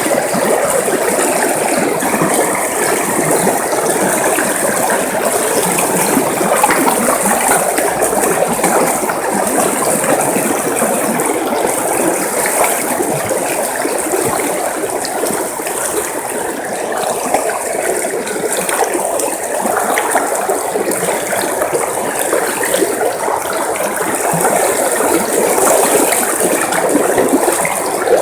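River water flowing steadily over stones, a dense, even babbling and splashing.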